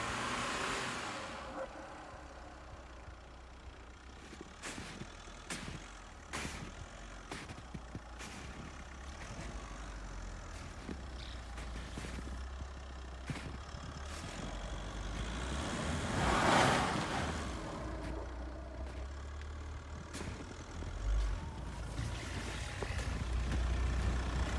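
Volkswagen Amarok pickup driving slowly through deep snow, its engine running low and steady, with scattered sharp clicks and a louder rushing swell about two-thirds of the way through.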